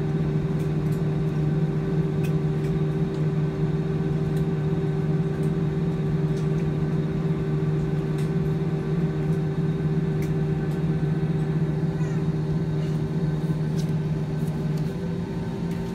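Jet airliner cabin noise over the wing: the engines run at low power with a steady drone and whine as the plane rolls slowly on the runway after landing. A few faint clicks or rattles come now and then.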